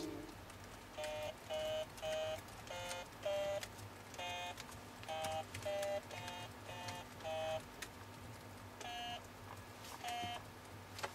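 Short electronic key beeps from a toy laptop as its buttons are pressed: about a dozen in an uneven run, each at a slightly different pitch, then two more spaced out after a pause.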